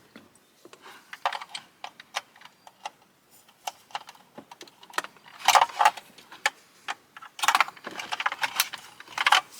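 Irregular clicks and clattering of a car radio head unit, its plastic wiring connectors and screws being handled and fitted back into the dash, with a few louder rattling bursts about five and a half, seven and a half and nine seconds in.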